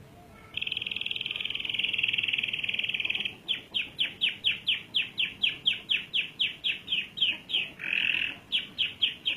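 Domestic canary singing: a long rapid roll of about three seconds, then a run of repeated down-slurred notes at about four a second, broken once by a short buzzy note near the end.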